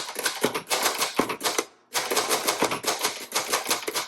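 1961 Royal Signet manual portable typewriter typed on quickly: a rapid run of key strikes, with a brief pause a little under two seconds in.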